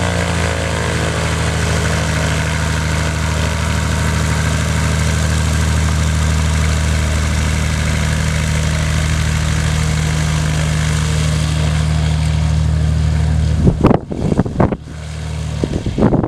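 Cessna 170A's six-cylinder piston engine and propeller running steadily at taxi power as the plane rolls past. A few loud, irregular bursts of noise break in about fourteen seconds in, after which the engine sounds weaker as the plane moves away.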